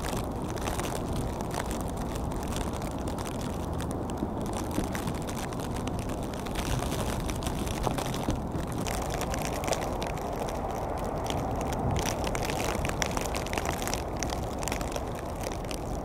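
Wind in a heavy snowstorm: a steady low rush with faint scattered ticks.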